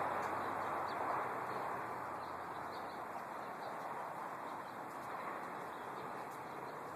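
Faint short bird chirps over a steady rushing background noise that eases slightly a couple of seconds in.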